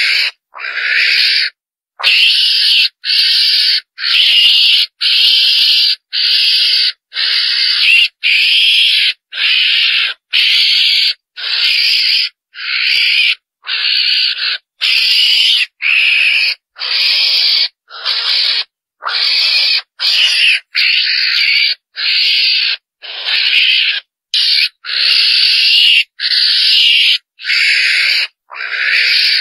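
Ferret-badger lure call: short, hissy, raspy calls repeated about once a second in a steady train, each under a second long with brief gaps.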